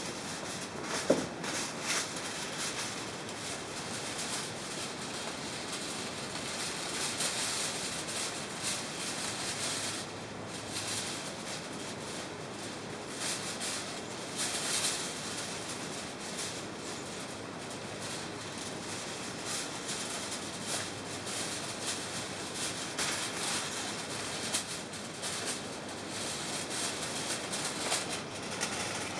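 Portable gas grill cooking kebab burger under foil: a steady hiss with irregular crackles. One sharp knock about a second in.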